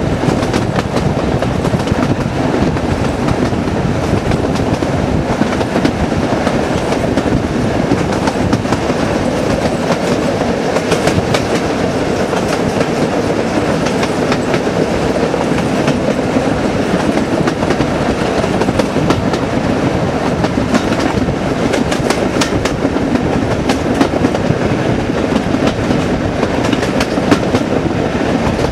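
Class 37 diesel locomotive's English Electric V12 engine working hard under power ahead of the train, heard from an open carriage window with wind rush. Wheels click over rail joints now and then.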